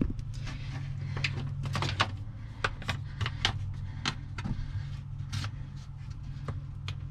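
Irregular clicks, taps and rattles of battery cables and wiring being handled by hand around a marine cranking battery, over a steady low hum.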